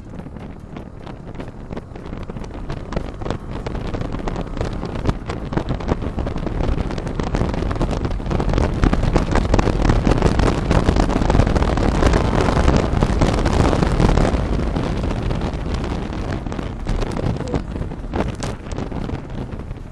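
Heavy wind buffeting on the microphone of a camera riding on a moving motorcycle, with a low steady rumble underneath. It builds to its loudest a little past the middle, then eases off.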